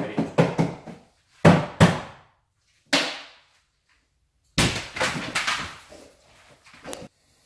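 A string of sharp knocks and thuds echoing in a small room: a quick cluster at the start, two more about a second and a half in, one near three seconds, a longer run from four and a half to six seconds, and a single sharp click near the end.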